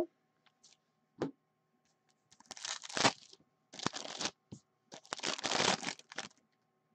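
Foil wrapper of a 2019-20 Upper Deck Series 2 hockey card pack being torn open and crinkled, in three bursts of tearing and rustling from about two and a half to six seconds in.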